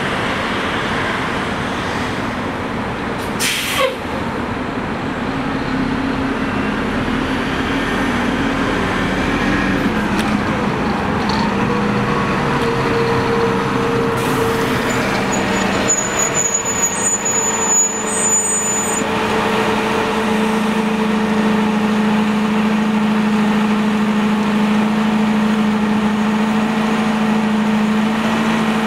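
Orion VII CNG city bus with a Detroit Diesel Series 50G natural-gas engine idling at a stop, with a short sharp burst of air hiss about three and a half seconds in and a high beeping between about 15 and 19 seconds.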